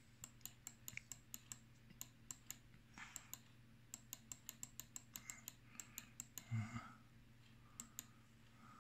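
Computer keyboard keys clicking in short irregular taps, typing, with a soft low bump about three-quarters of the way through.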